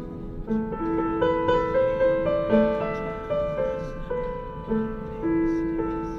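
Background piano music: a slow melody of held notes, a new note about every half second.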